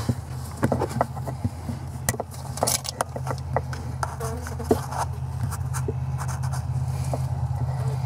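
Scattered light clicks and taps of handling against the wooden top bars of a beehive, over a steady low hum.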